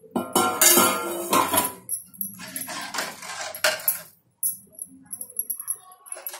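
Metal ladle stirring a thin fish curry in a large metal pot, scraping and clinking against the pot's sides in several bursts, with a brief pause a little after four seconds and lighter clinks after it.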